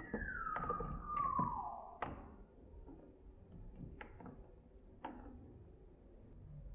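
A metal spoon stirs ice cubes in a glass of watermelon juice: scattered clinks of spoon and ice against the glass. Over the first two seconds a high squeak slides steadily down in pitch and is the loudest sound.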